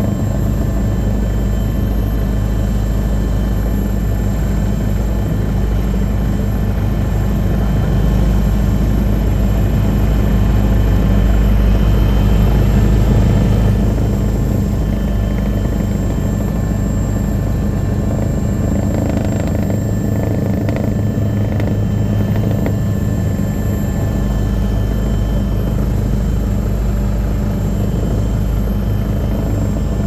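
Helicopter running steadily, heard from on board, with a rapid low rotor beat under a steady engine hum. It gets a little louder for a few seconds near the middle.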